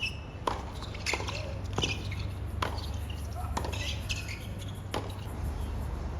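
Tennis balls struck back and forth on a hard court in a rally, a sharp hit about every second, with sneakers squeaking on the court between shots.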